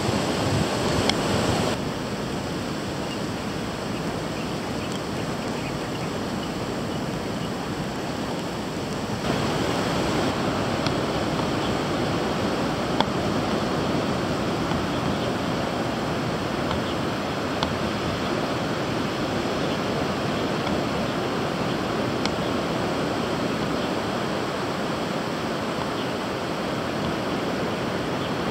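Ocean surf breaking on a sandy beach: a steady rush of waves, a little louder from about nine seconds in.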